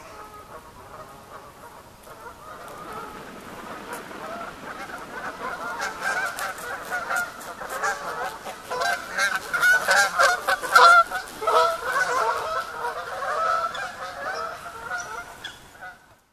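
A flock of geese honking, many overlapping calls that build up to a peak a little past halfway and then die away near the end.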